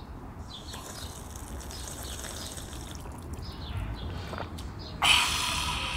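A man gulping down a glass of water. A louder hiss-like noise comes in suddenly about five seconds in.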